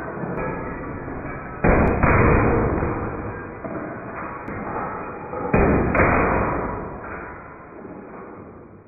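Two pairs of sharp bangs, each pair about a third of a second apart, about a second and a half in and again about two-thirds through: a Walther PPQ T4E CO2 pistol firing .43 calibre steel balls, with a glass bottle and then a glass jar smashing. Each pair is followed by a fading clatter of breaking glass.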